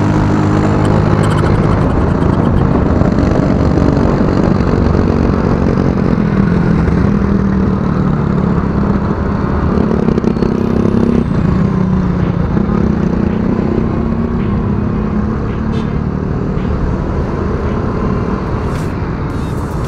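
Motorcycle engine running as it rides through slow traffic, its pitch rising and falling with the throttle, over steady wind and road noise.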